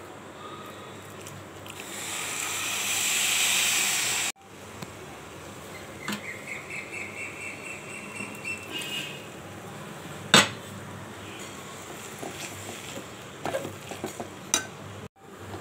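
Steel spatula scraping and knocking against a metal pot while stirring a thick gram-flour mixture, with one sharp clank about ten seconds in and a few lighter taps near the end. A loud hiss builds over the first few seconds, and a high, fluttering chirp lasts a couple of seconds in the middle.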